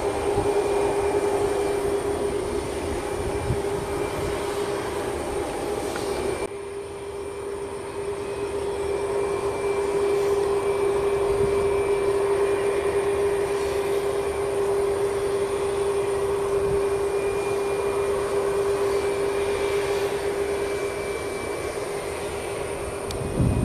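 Boeing 737 MAX 8's CFM LEAP-1B turbofans at taxi power as the jet taxis: a steady hum with a high whine over a rushing noise. The sound drops suddenly about six seconds in, then builds again, and there is a brief thump near the end.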